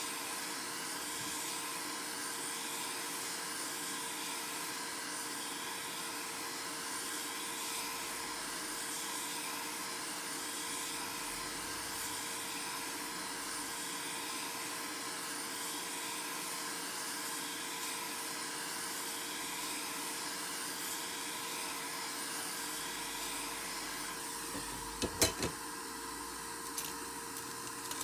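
A small electric blower running with a steady hiss and faint hum, with a few sharp clicks near the end.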